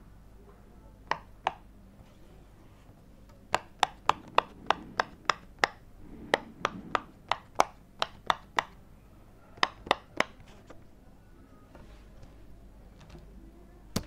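Silicone pop-it fidget toy, its bubbles pressed one after another with a fingertip, each giving a short, sharp pop. There are two pops about a second in, then a quick run of about three a second, then three more, about twenty in all.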